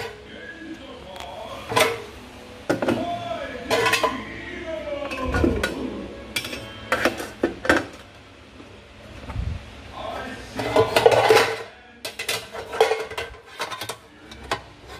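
Kitchen clatter: irregular knocks and clinks of a fork, plate and air fryer basket as pieces of pork hock are loaded into the basket.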